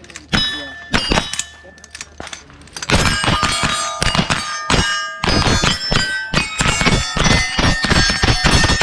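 Steel target plates clanging and ringing as rifle shots hit them: a few spaced hits at first, then from about three seconds in a fast, dense run of hits whose ringing overlaps.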